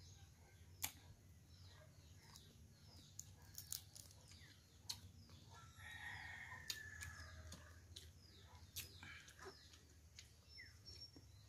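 Faint outdoor backdrop of small birds chirping over and over, with a rooster crowing faintly for about a second and a half starting six seconds in. Scattered soft clicks throughout.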